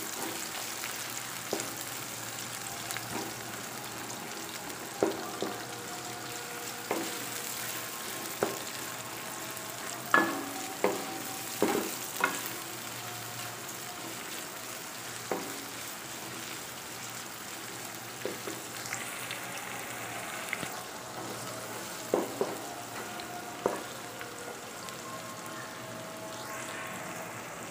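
Sliced onions sizzling in hot ghee in an aluminium pot, frying toward light brown. A wooden spoon stirs them, knocking and scraping against the pot now and then; the loudest knocks come about ten to twelve seconds in.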